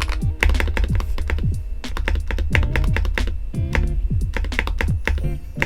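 Typing on a modded Keychron V1 mechanical keyboard with SuperLube-lubed KTT Mint linear switches: quick runs of keystroke clacks. Background music with a heavy bass plays under it.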